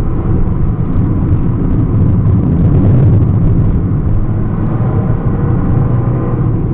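Fiat 500 Abarth's engine running hard at track speed, heard from inside the cabin along with road noise; it eases off through a corner and pulls again near the end.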